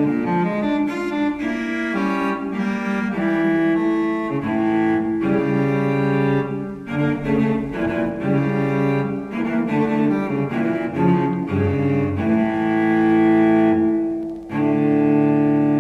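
Background music: a melody of pitched notes that change every half second or so. It dips briefly about fourteen seconds in, then settles into a held chord.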